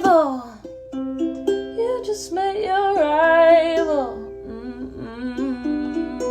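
A woman singing long, wavering held notes over a plucked string accompaniment.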